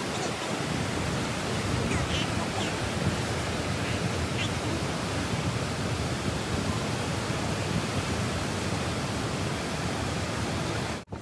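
Water rushing steadily through the sluice of a lock gate and crashing into the lock chamber as the lock fills.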